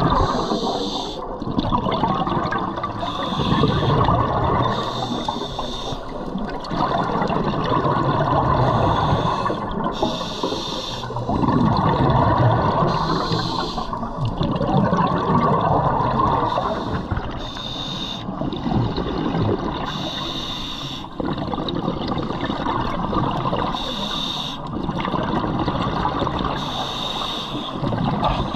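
Scuba regulator breathing underwater: a short hiss on each inhale and a rush of exhaled bubbles, repeating every few seconds.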